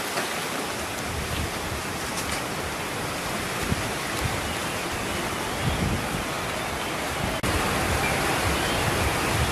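Steady rushing outdoor noise, a broad even hiss, with a few soft rustles and faint clicks from banana leaves and stalks being handled. The sound breaks off and resumes slightly louder about seven and a half seconds in.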